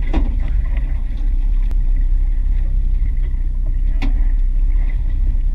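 Steady low rumble of a fishing boat at sea, its motor and the water against the hull, with a couple of sharp knocks in the boat, the clearest about four seconds in.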